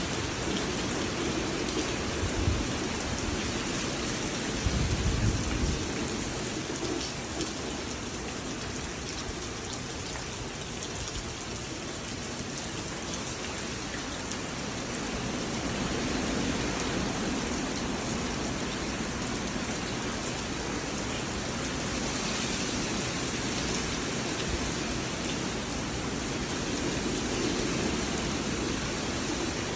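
Heavy hurricane rain pouring down with strong wind, a dense steady hiss that swells and eases slightly. Low rumbles come about two seconds in and again around five seconds in.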